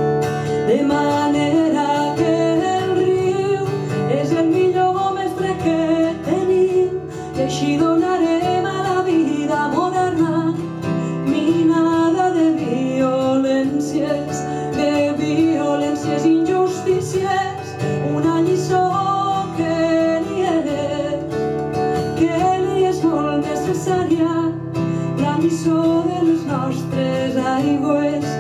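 A woman singing live to her own acoustic guitar accompaniment.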